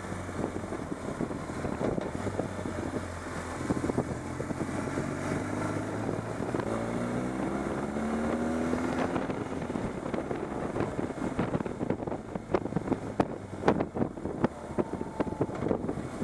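Motorcycle engine running under way, with wind buffeting the microphone; the engine note climbs as the bike accelerates about seven to nine seconds in, then drops away. Scattered sharp knocks from wind buffets and road bumps near the end.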